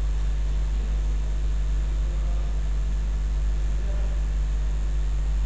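A steady low hum with an even hiss over it, unchanging, with no speech.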